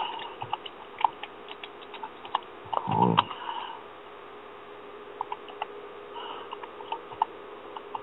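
Computer keyboard typing, heard over a phone line: irregular key clicks in short runs, with a brief murmured voice sound about three seconds in.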